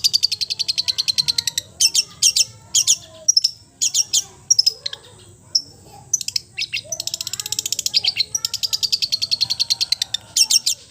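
Songbird singing: fast high-pitched rattling trills that alternate with loud, sharp separate chips, over fainter warbling from other birds.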